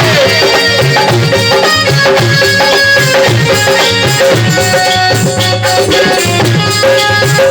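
Loud Indian devotional group music, with hand drums like tabla and rattling percussion keeping a steady beat under sustained melodic tones.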